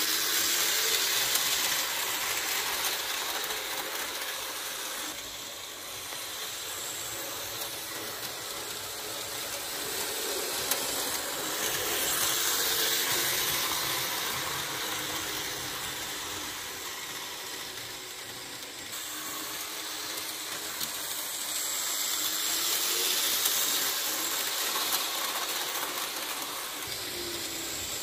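Märklin HO model F7 diesel locomotive and its freight cars running on metal model track: a steady whirring, rattling hiss of the motor and wheels on the rails. It swells and fades as the train circles nearer and farther, loudest near the start, about twelve seconds in and again about twenty-three seconds in.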